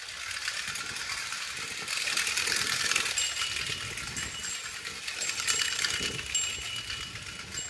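Lionel 1103 Peter Rabbit Chick Mobile, a clockwork tinplate hand car, running along O gauge tinplate track: a steady metallic whirring and rattling of the wind-up motor and the wheels on the rails.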